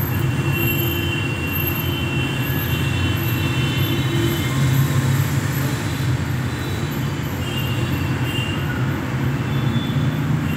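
Cluster beans and potatoes being stir-fried (kosha) in a metal kadai: a spatula scraping and turning them against the pan with thin squeaks now and then, over a steady frying hiss and a low hum.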